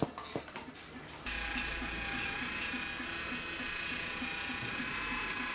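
A veterinary dental polishing handpiece starts up a little over a second in and runs at a steady high-pitched whine, polishing a dog's teeth with coarse polishing paste after scaling. A few light clicks come before it starts.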